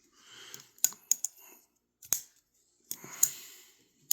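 Sencut Sachse button-lock folding knife being flicked open and shut: about six sharp clicks as the blade snaps into lock and is released, with soft rustling between.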